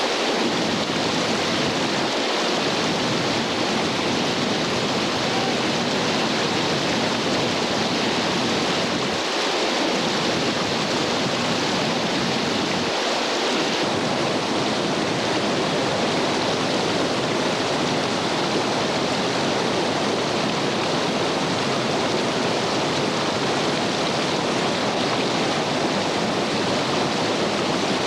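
Whitewater rapids rushing steadily over boulders, with the creek running at about 1820 cfs. It makes a loud, unbroken wash of water noise.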